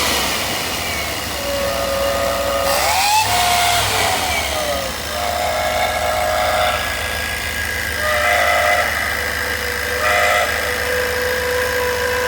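A 5.7-litre Chevy V8 idling with a whistle from around the throttle body. The whistle wavers in pitch, glides upward about three seconds in, and comes and goes in short spells before settling into a steady tone.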